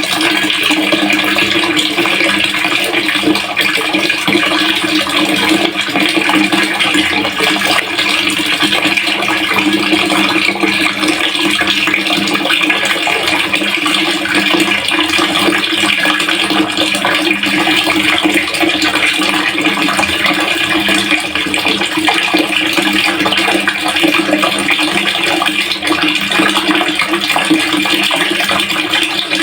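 Water running steadily into a pail, a continuous splashing rush.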